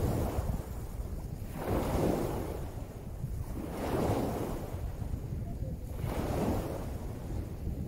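Small sea waves breaking and washing up a pebbly shore, four surges about every two seconds, over a steady low rumble of wind on the microphone.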